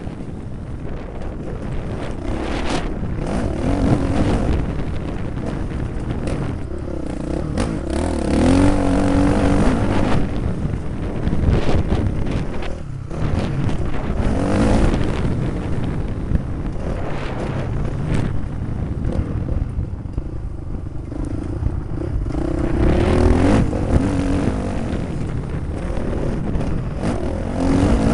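Motocross bike engine heard up close from on board while riding a dirt track, revving up and falling back again and again as the rider opens and closes the throttle.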